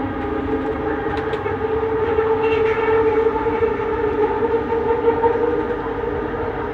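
Inside a Bombardier Innovia Metro 300 running between stations: a steady whine from its linear induction motors over the rumble of the running gear. Two sharp clicks come about a second in.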